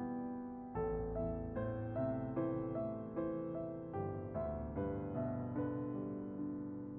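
Background piano music: single notes and chords struck at an even pace, each dying away.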